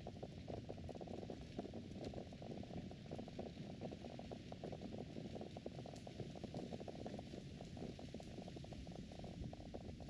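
Low, irregular rumbling of wind buffeting the microphone.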